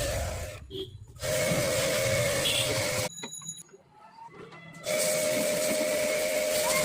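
Electric jet pump (pressure washer) running with a steady whine, its water spray hissing, in stretches broken by abrupt cuts. There is a short gap about a second in and a longer, quieter one around the middle.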